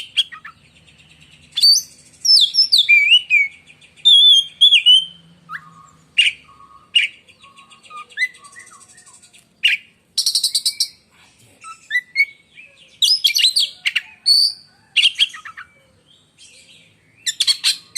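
Oriental magpie-robin (kacer) singing a loud, varied song of shrill whistled phrases that glide up and down. Harsh rasping notes come in between, and there are a few lower whistles near the middle.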